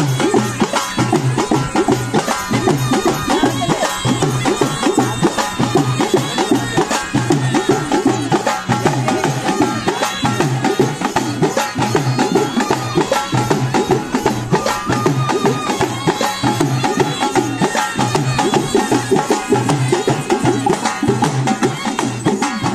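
Snake charmer's been (pungi) playing a continuous folk tune over a held drone, with a steady low beat underneath.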